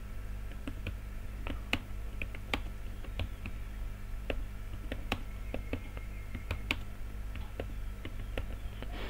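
Computer keyboard typing: irregular keystroke clicks, a few a second, over a steady low hum.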